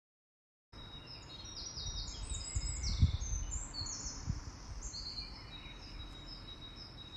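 Small songbirds chirping in quick runs of short high notes over a low background rumble, broken by a couple of dull thumps. A thin steady high tone joins about halfway through. The sound starts after a brief silence.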